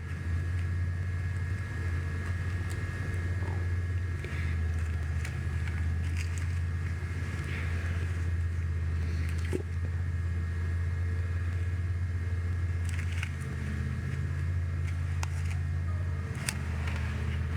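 A steady low mechanical hum with a few faint steady higher tones over it, and scattered faint light clicks.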